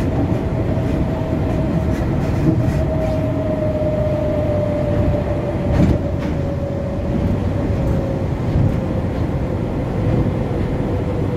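Kuala Lumpur Monorail train running on its elevated beam, heard from inside the carriage: a steady rumble of the rubber-tyred running gear with a whine that slowly drops in pitch, and a sharp click about six seconds in.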